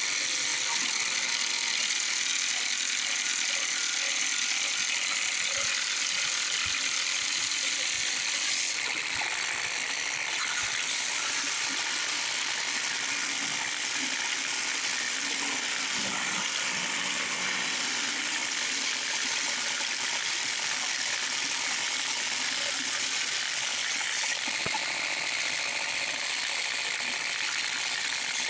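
A 16-32 drum sander and a shop vac running together: a steady, even hiss that stays level throughout.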